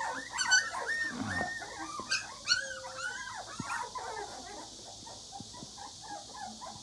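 A litter of twenty-day-old Canary dog (Presa Canario) puppies crying, with many short, high-pitched whines overlapping one another. They are loudest in the first few seconds and fainter after about four seconds.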